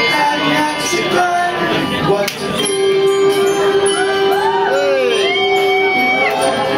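Handbells ringing out notes of a tune, one low bell note held for several seconds from about the middle, with a few voices sliding up and down in pitch over it.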